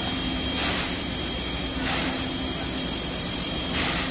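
CK124, a 2-6-2 tank steam locomotive, moving off slowly, with three sharp hissing steam chuffs about a second and a half apart over a steady hiss.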